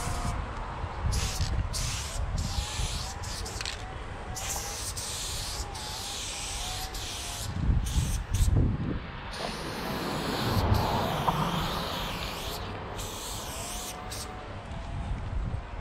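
Aerosol spray paint can fitted with a Montana Level 6 fatcap, hissing in repeated bursts of varying length, some short and some a second or more, as paint is sprayed onto a wall. A low rumble runs underneath, with a few louder low thumps about halfway through.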